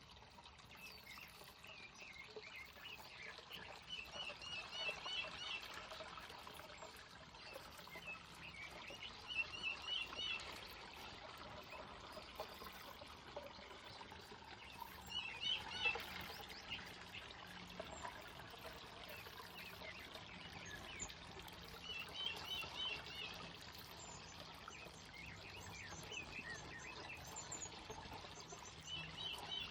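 Small waterfall splashing and trickling steadily into a pond, with birds chirping in short bursts of trills every few seconds.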